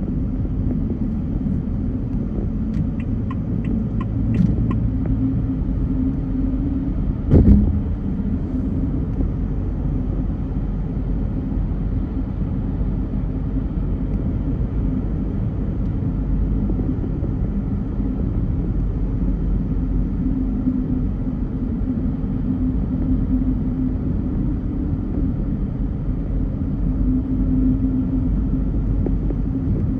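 Car driving in traffic: a steady low rumble of engine and road noise, with a short run of quick light ticks about three seconds in and a single thump a little after seven seconds.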